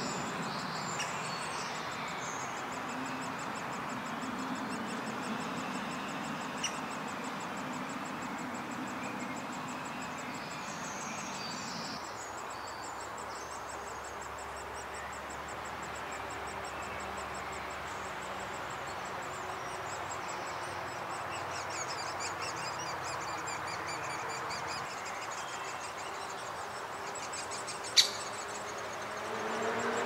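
Outdoor ambience of birds chirping over a steady, even background rush, with one sharp click about two seconds before the end.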